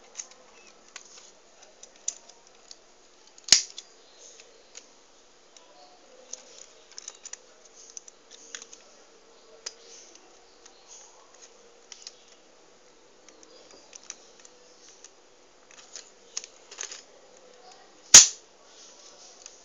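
Plastic clicking and rattling from a Lego brick pistol being handled and worked, with two much louder sharp snaps, one about three and a half seconds in and one near the end.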